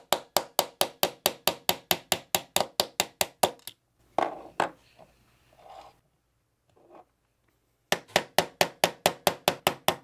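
Small hammer rapidly tapping a 3/32-inch steel pin punch, about five light taps a second, driving a roll pin out of a Taurus G3/G2 pistol frame. The tapping stops a little past a third of the way in, with a couple of knocks and handling sounds, then starts again near the end as the next pin is driven.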